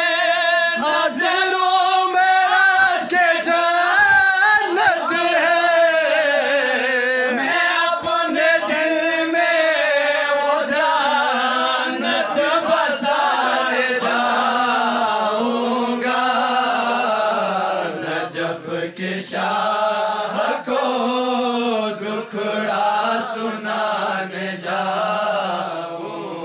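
A young man singing a devotional Urdu manqabat into a microphone, drawing out long, wavering notes.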